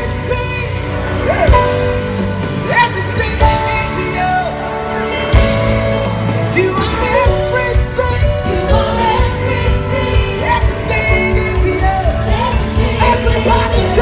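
Live gospel band playing with sung vocals over a steady drum beat.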